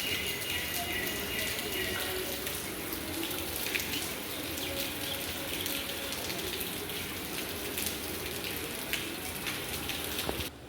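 Steady rain with water dripping and splashing, individual drops landing as sharp ticks.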